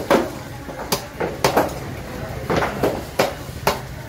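Large, broad-bladed knife chopping through squirrelfish on a wooden chopping block: a series of sharp chops at an uneven pace, some in quick pairs.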